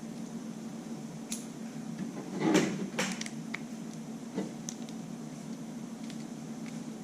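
Light clicks and knocks of a hair dryer's hard plastic safety plug being handled and turned over, the loudest about two and a half seconds in.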